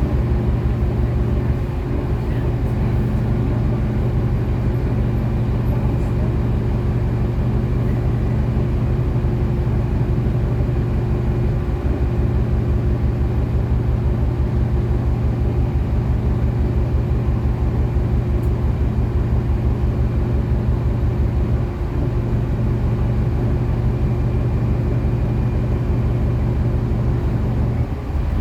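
City bus engine running at a steady speed: a constant low drone that holds one pitch throughout.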